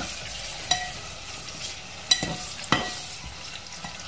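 Chopped onions and garlic sizzling in hot oil in a metal pot while a metal slotted spoon stirs them. The spoon knocks against the pot three times, each knock ringing briefly.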